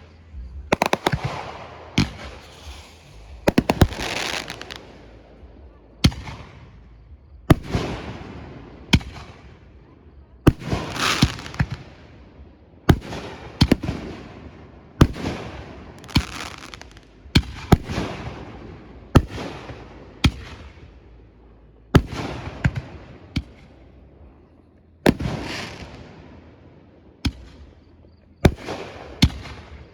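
Fireworks bursting one after another, a sharp bang every second or two. Many bangs are followed by a hiss that fades within about a second.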